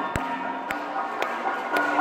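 Music with a steady beat: sharp percussive strikes about twice a second over held pitched notes.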